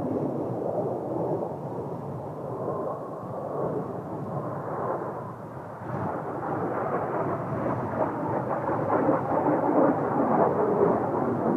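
Kawasaki T-4 jet trainers' turbofan engines, a continuous roar from aircraft in the air nearby. It dips about halfway through, then builds again toward the end.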